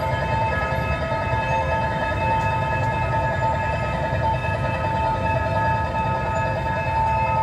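Railway level-crossing warning alarm ringing continuously with a steady, fluttering multi-tone ring, over the low rumble of idling motorcycles and traffic.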